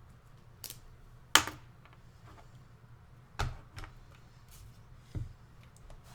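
A handful of separate computer keyboard key clicks, the loudest about a second and a half in, over a faint steady low hum.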